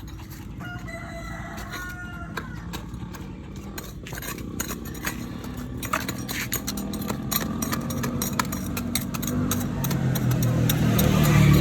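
A rooster crows about a second in, a drawn-out pitched call. Later an engine grows steadily louder toward the end, with scattered clicks and knocks throughout.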